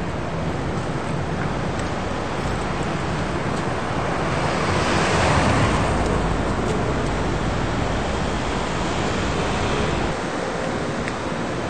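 Street traffic noise, with a swell of noise that rises and fades about five seconds in, like a vehicle passing close by.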